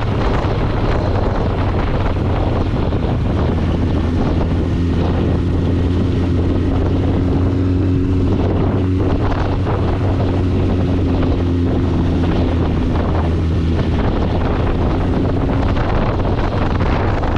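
Motorcycle engine running steadily at low speed, a constant low hum, with wind rushing over the microphone.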